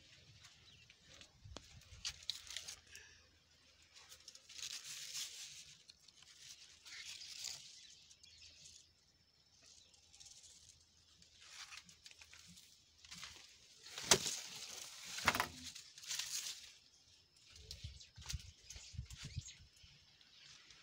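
Passion fruit vine leaves rustling and brushing in short bursts every second or two, with a couple of sharp clicks about two-thirds of the way in.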